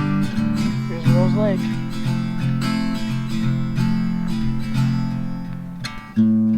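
Background music: strummed acoustic guitar chords, with a fresh loud strum near the end.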